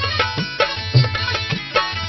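Music with a steady, regular drum beat under sustained melodic tones.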